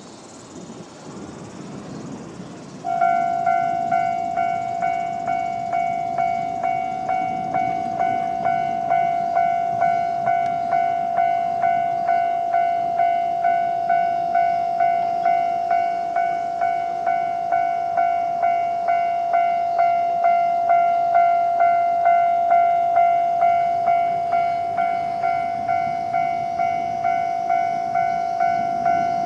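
Japanese railway level-crossing warning bell starting about three seconds in, ringing its standard electronic tone in steady repeated strokes, about three every two seconds.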